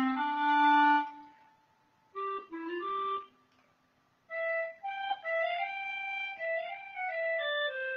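Akai EWI 5000 electronic wind instrument playing its jazz clarinet preset: a synthesized clarinet tone in two short melodic phrases separated by brief pauses, then a longer run of stepping notes from about four seconds in.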